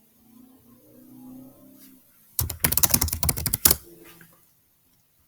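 A quick burst of rapid computer keyboard clicks lasting about a second and a half, midway through, after a faint low hum.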